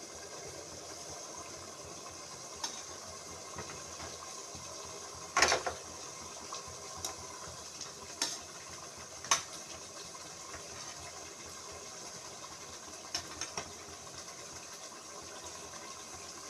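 Curry gravy simmering and bubbling in a pan, with a steady hiss, as pieces of fried chicken are dropped in with a metal spatula. The spatula clinks and knocks against the pan about eight times, loudest about five seconds in, with a quick pair near the end.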